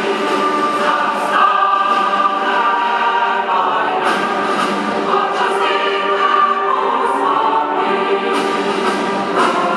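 Large massed mixed choir of men and women singing loudly together, holding notes that change about every second.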